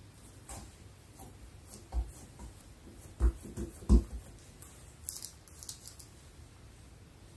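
Hands patting and pressing a ball of bun dough flat on a mat, with a few soft thumps about two to four seconds in. Then comes a light rustle of paper as a piece of butter is picked up from it.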